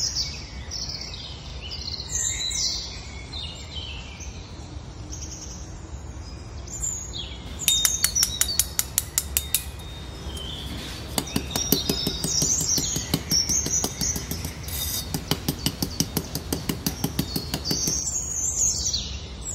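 Birds chirping, with a run of quick, evenly repeated scratching strokes beginning about eight seconds in. The strokes are short and sharp, very fast at first and then about three a second. They fit miniature garden tools raking fine sand.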